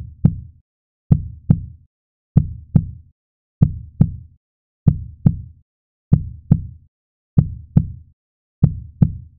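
Slow heartbeat sound effect: deep paired 'lub-dub' thumps repeating about every one and a quarter seconds, with silence between the beats.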